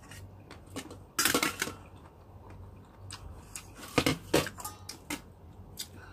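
Kitchen knife clinking and scraping against a metal bowl, with a loud cluster of clatters a little over a second in and two more sharp knocks around four seconds.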